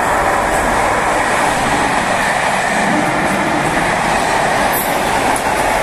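A test train hauled by Class 73 locomotives passes through the station close by at speed. Its wheels and coaches make a loud, steady rushing rumble on the rails.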